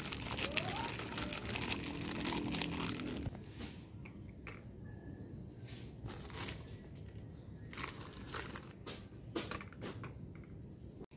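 Thin plastic bag crinkling as it is opened and a flatbread is pulled out: dense crackling for the first few seconds, then scattered short rustles.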